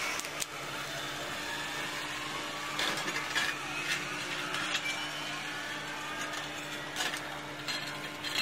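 Zipline trolley running down the steel cable, a steady mechanical whirring hum with a faint rising whine as it gathers speed and a few light clicks.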